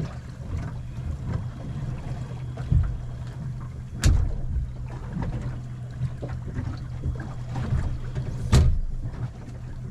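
A small boat at anchor: a steady low hum runs under the sound of the hull, with a dull thump about three seconds in and two sharp knocks, about four and eight and a half seconds in.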